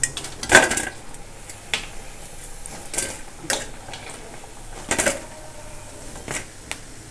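Perforated steel skimmer clinking against an iron kadai and a steel plate, about seven scattered taps, over the steady sizzle of lentil vadas deep-frying in oil.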